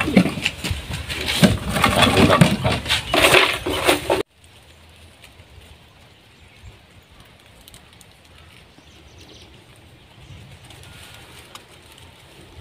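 Busy clattering and knocking of cooking pots and utensils, which cuts off abruptly about four seconds in to a faint outdoor background.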